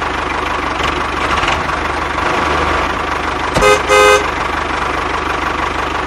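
Engine running steadily with a low, even chugging. A little past halfway, a horn gives two short toots in quick succession.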